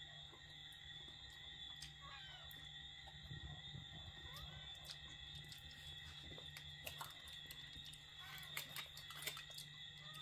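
Faint clicks and scrapes of a metal fork against aluminium foil and steamed fish during eating, the loudest a few seconds from the end. Under them runs a steady high-pitched whine with a low hum, and a few faint short chirps.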